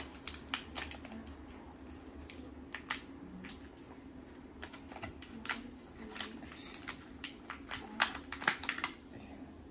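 Hands handling a small plastic toy and its packaging: irregular clicks and crinkles, thickest near the end.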